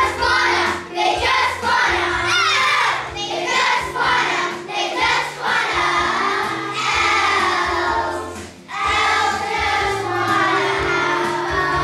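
Children's choir singing in unison over an instrumental accompaniment with steady held bass notes, with a brief break between phrases about two-thirds of the way through.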